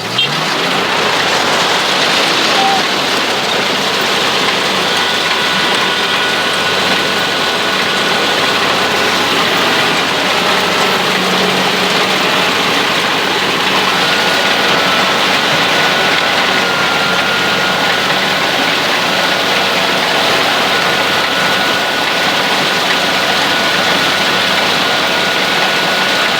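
Rice harvester heard from on board, its engine and machinery running steadily as a loud, even noise with a faint steady whine on top.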